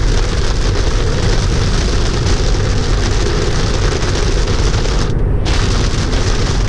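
Heavy rain hitting the windshield and roof of a Tesla Model 3 at highway speed, over a steady low tyre and road rumble, heard from inside the cabin. About five seconds in the rain hiss cuts out for half a second as the car passes under an overpass, while the road rumble goes on.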